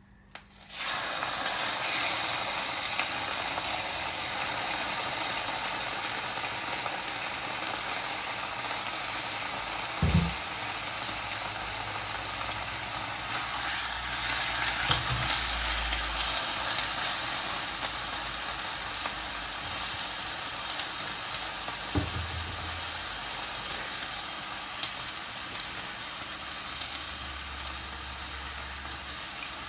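Food sizzling in hot oil in a frying pan, starting suddenly just under a second in and running on steadily, with two short low knocks, one near the middle and one later.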